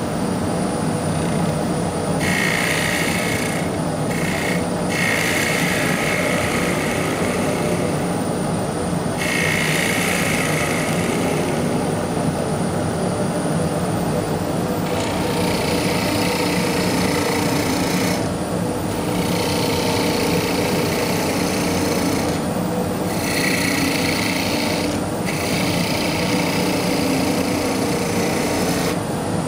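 Axminster AW305WL wood lathe running with a steady hum while a skew chisel cuts a small spindle. The wood hisses and rasps under the blade in stretches of a few seconds, with short breaks where the tool comes off the work.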